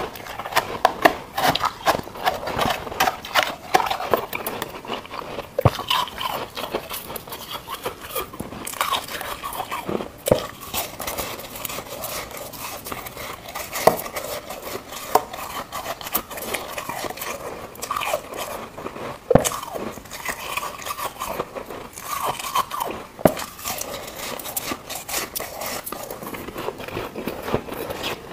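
Soft, snowy frost ice crunching and crackling close to a clip-on microphone: it is crumbled by hand in a plastic tub, then bitten off in big chunks and chewed. A steady run of small crackles is broken every few seconds by a sharper crunch.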